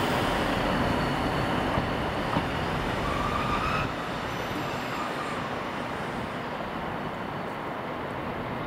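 A train moving on the rails, with brief wheel squeals about two and three seconds in. The running noise drops suddenly about four seconds in and then fades steadily.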